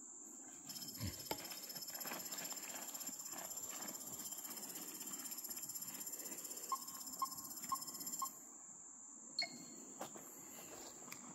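Steady high-pitched chorus of insects in summer woodland, with footsteps and the measuring pole being set down in leaf litter. About two-thirds of the way in, the Moasure measuring tool sounds four short beeps about half a second apart, and one more beep follows as it captures the point.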